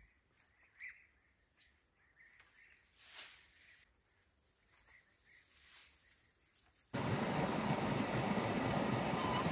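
Faint bird chirps over quiet outdoor ambience, with a soft swish about three seconds in. About seven seconds in, a loud steady rushing noise cuts in abruptly.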